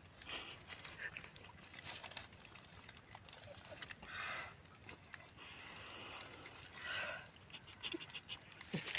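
Faint outdoor ambience with a few brief, faint calls or cries scattered through it, and a sharp click as the audio cuts off at the very end.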